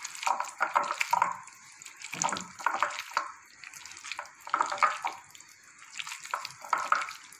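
Wet squelching and splashing in irregular bursts, about two a second: cauliflower florets being worked by hand in a thick, wet spiced batter for gobi 65.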